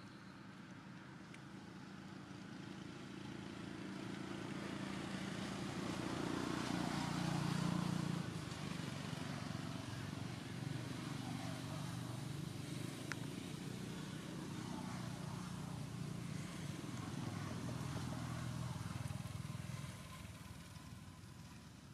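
A motor vehicle's engine running, growing louder over the first several seconds and then holding a steady low drone before dropping off near the end.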